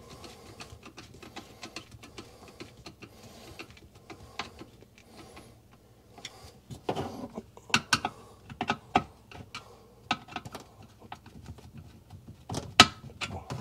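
Flathead screwdriver working the screws of a garbage disposal's metal discharge flange: irregular small clicks and taps of tool and parts being handled, busier about seven to nine seconds in and again near the end.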